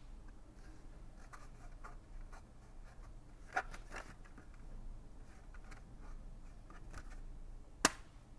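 Plastic texture plaques being handled: faint rubbing and shuffling, a few soft clicks, and one sharper click near the end.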